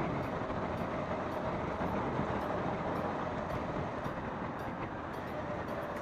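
Honda CBR150R's single-cylinder engine running steadily on the move, mixed with wind and road noise. The engine runs smoothly after its crushed crankcase bearing was replaced.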